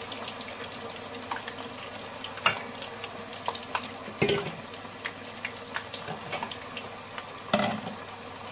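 Raw potato strips deep-frying in a pot of hot oil, a steady crackling sizzle. This is the first, lower-temperature pre-fry of homemade fries. Three sharp knocks of kitchenware come about two and a half seconds in, just past four seconds, and near the end.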